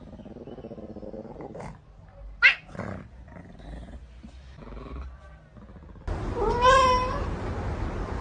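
A cat gives one loud meow, wavering in pitch, about six seconds in. Before it come a few sharp clicks and fainter sounds.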